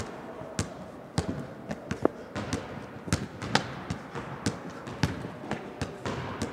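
Basketball dribbled on a hardwood gym floor: repeated bounces in an uneven rhythm, about two to three a second.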